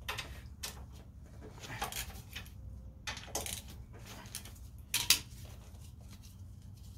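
Metal clinks and scrapes of a wrench working the 12 mm bolts of a Yamaha Warrior ATV's front brake caliper. The clicks come short and irregular, with the sharpest clink about five seconds in.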